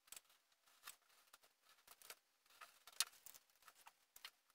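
Faint, scattered ticks and scrapes of a hobby knife cutting masking tape on a cutting mat, then of the tape being handled, with one sharper click about three seconds in.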